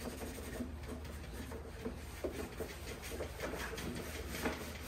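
Faint handling noises: scattered small clicks and rubbing, with one slightly louder click near the end, over a low steady hum.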